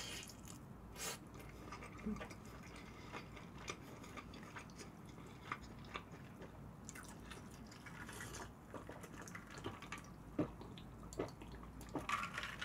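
Close-miked, quiet chewing of sauced fried chicken, with soft wet mouth clicks and smacks scattered throughout, then sips and swallows of iced cola in the second half.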